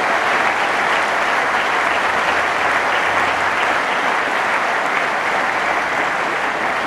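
Large audience applauding, a steady dense clapping that eases off slightly near the end.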